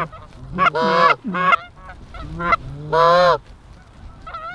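Hunters blowing Canada goose calls: several loud, short honks, each breaking from a low note to a high one, spaced a second or two apart.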